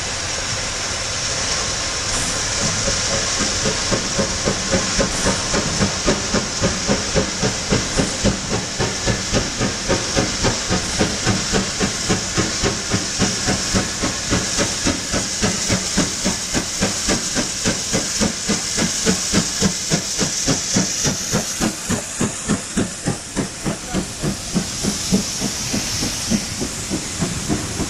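Steam locomotive approaching and running past with a loud steam hiss and a steady exhaust chuff of about three beats a second, then its carriages rolling by.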